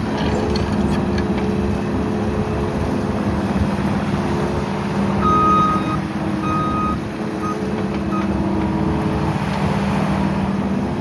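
Case TR270 compact track loader's diesel engine running steadily. About five seconds in, a high electronic beeper sounds two longer beeps and then two short ones.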